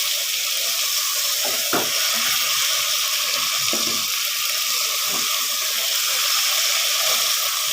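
Aloo chicken curry sizzling steadily in a pot, with a few knocks, about three, of a spoon against the pot.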